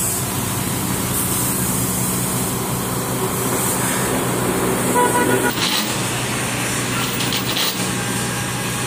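Vehicle engine idling steadily, with a short horn toot about five seconds in.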